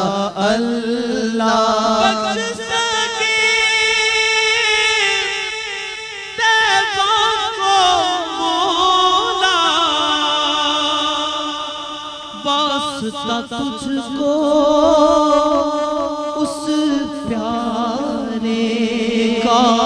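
A voice singing an Urdu naat, a devotional song in praise of the Prophet, with long held notes that waver and glide in pitch. It is background music rather than sound from the scene.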